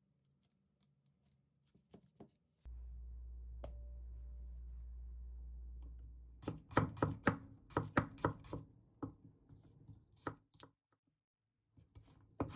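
Chef's knife chopping garlic cloves on a wooden cutting board: a quick run of blade knocks, thinning out to scattered strokes, then a dense run again near the end. Before the chopping there is a steady low hum lasting a few seconds.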